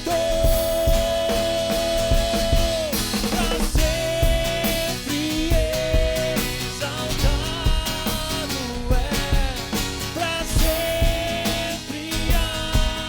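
Live worship band playing a rock-style passage: a drum kit keeps the beat under a melody whose first note is held for nearly three seconds, followed by shorter phrases.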